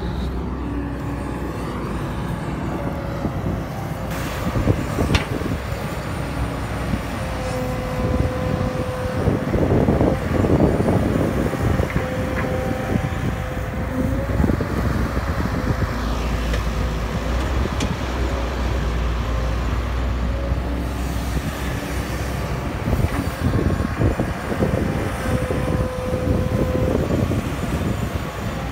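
Caterpillar E120B hydraulic excavator's diesel engine running steadily under load while it digs and swings, with a whine that rises in for a second or two several times and a few sharp knocks.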